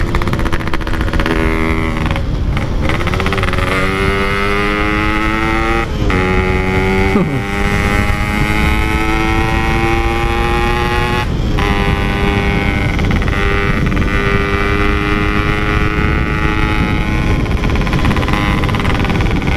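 Two-stroke Yamaha RX-King motorcycle engine through a Packing Power exhaust, ridden on the road. It rises in pitch through the gears, with short breaks at the shifts about 2, 6 and 11 seconds in and a falling dip around 7 seconds. It then holds a steady pitch while cruising.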